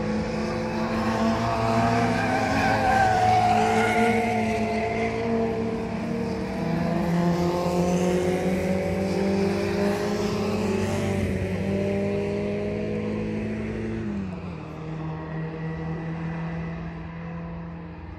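Several Mini 1000 class race cars' 1000cc four-cylinder engines running together through a bend, their notes overlapping and shifting in pitch. About fourteen seconds in, the engine note drops lower and quieter as the cars pull away.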